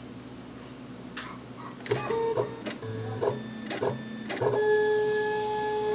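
Jinka AC1351 NXL vinyl cutting plotter's stepper motors driving the cutting head and sheet in short whining moves with clicks between them, then one long steady whine from about halfway in as the carriage travels at full speed.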